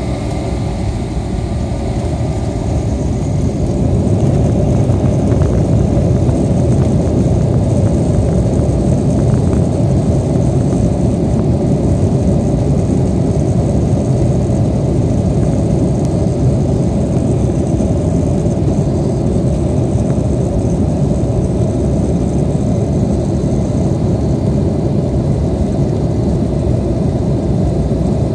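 Airliner's engines at high power heard from inside the cabin, a loud, deep, steady rushing rumble that builds over the first few seconds and then holds, typical of the takeoff roll and climb-out.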